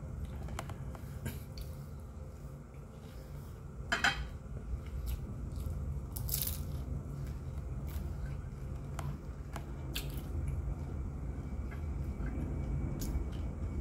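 Close-up eating of fried chicken and lumpia with the hands: bites, crunching and chewing, with scattered short crisp clicks and one louder sharp sound about four seconds in, over a low steady hum.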